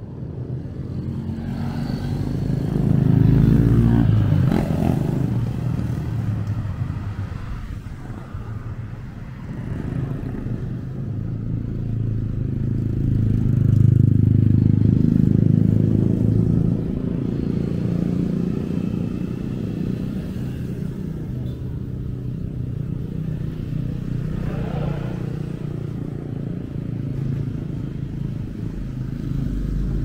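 Street traffic: motor vehicles passing close by, loudest about three to four seconds in and again around fourteen to sixteen seconds in, over a steady engine rumble.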